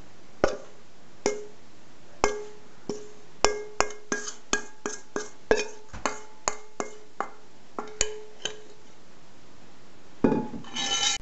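Stainless steel mixing bowl knocked and tapped over and over as crumbly dough is shaken out of it onto a wooden table, each strike ringing briefly. Near the end, a short louder rasping burst.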